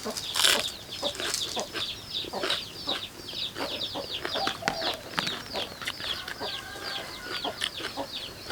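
Chickens and small birds calling outdoors: a fast, steady run of short, high, downward-sliding peeps, several a second, with a few short crunchy crackles of chewing mixed in.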